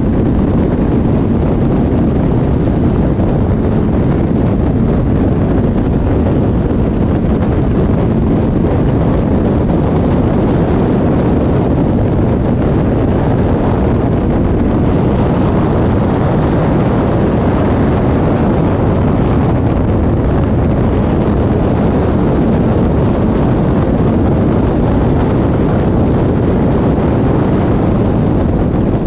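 Caterham 420R's four-cylinder engine running at racing speed, heard from the open cockpit with wind buffeting the microphone; loud and steady throughout.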